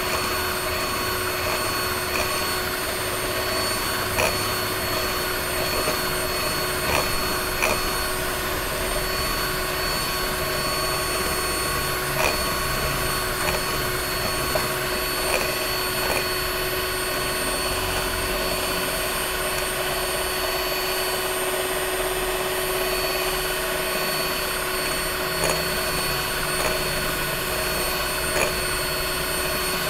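Electric hand mixer running steadily at one speed, its beaters whisking eggs and sugar in a glass bowl, with a few faint clicks scattered through it.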